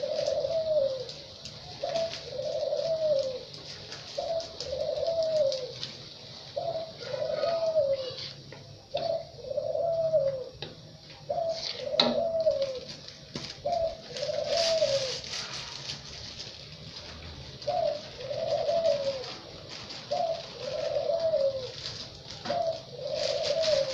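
A dove cooing over and over: short coos that rise and fall, one every second or two, with brief pauses. Underneath runs a steady high hiss, with a few clicks.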